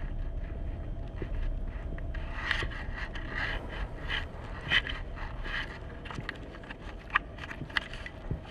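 Irregular scraping and clicking over a steady low hum, the scrapes bunched together in the middle.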